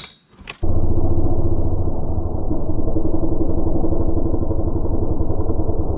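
Large Husqvarna chainsaw running under load in a cut, heard muffled with all its high end stripped away: a loud, steady low drone with a fast flutter. It starts about half a second in, after a brief drop-out.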